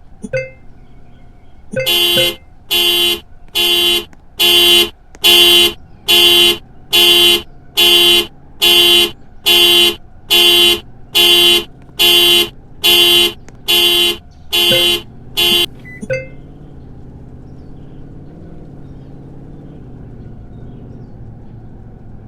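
Toy RC car's panic-alarm sound effect: a short chirp, then about seventeen car-horn honks at a little over one per second, then another chirp.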